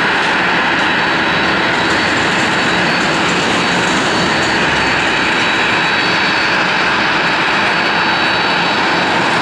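Boeing 737-800's CFM56-7B turbofan engines running at taxi thrust: a steady loud rush with a high whine held on one pitch.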